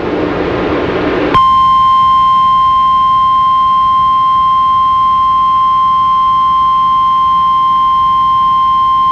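A hiss of static. About a second and a half in, the Emergency Alert System attention tone begins: a single steady high-pitched tone near 1050 Hz, the weather-radio warning alarm tone, held unbroken. It signals that a warning, here a severe thunderstorm warning, is about to be read.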